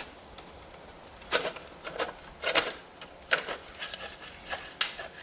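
Irregular light metal clicks and scrapes, about five or six over a few seconds, from a piston and piston ring compressor being handled at the cylinder bore after the top ring slipped out of the compressor. A faint steady high whine runs underneath.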